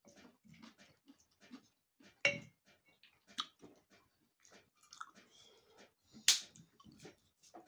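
A person chewing food close to the microphone, with irregular short clicks throughout and two louder sharp clicks about two and six seconds in.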